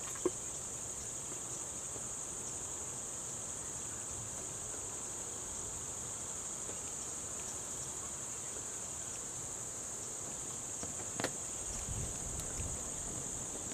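Steady high-pitched insect chorus droning without a break. There is a sharp click just after the start and another near the end, followed by faint low rumbling.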